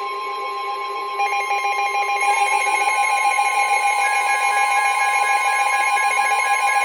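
Weather radio emergency alert tones: several steady electronic alarm tones sounding together. One is held throughout, and more join about one and two seconds in. They signal that a new warning is about to be read.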